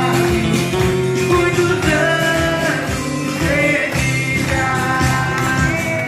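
Live acoustic guitar and singing, with people clapping along in time.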